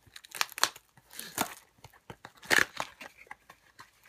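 Plastic shrink-wrap crinkling and tearing as it is peeled off a cardboard football-card box, and the box's flap opened. The sound is a run of uneven crackles, loudest about two and a half seconds in.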